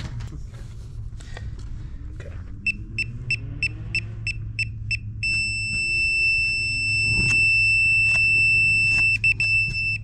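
DeWalt laser receiver on a grade stake beeping at a high pitch, about four quick beeps a second, then holding a steady tone from about halfway on, with a few short breaks near the end. The steady tone means the receiver sits on the laser's beam, at grade.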